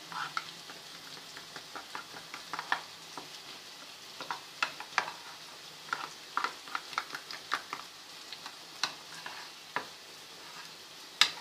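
Onion masala frying in ghee in a pan with a faint steady sizzle, while a spoon stirs and scrapes against the pan in irregular clicks.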